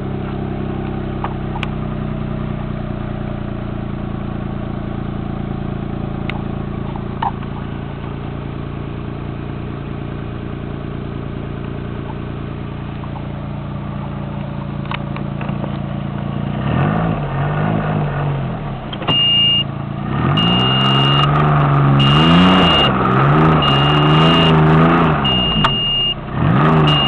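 Arctic Cat 660 four-stroke snowmobile's Suzuki three-cylinder engine idling steadily, then, about two-thirds of the way in, revved up and down several times. Through the revving a short high beep repeats evenly, about every second and a half.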